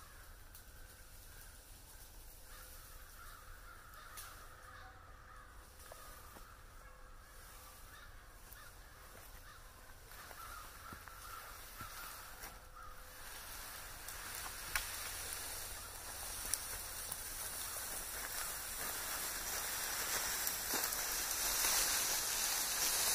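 Crows cawing through the first half. Over the second half, a rustling scrape grows steadily louder as a bundle of evergreen branches is dragged over the forest floor.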